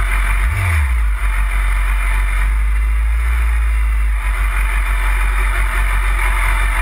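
BMW sport motorcycle engine idling while the bike stands still, heard through a camera mounted on the bike, with a steady deep rumble.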